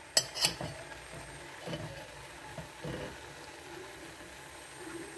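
Two quick, sharp clinks of a utensil against a metal pot near the start, then only faint, steady background noise.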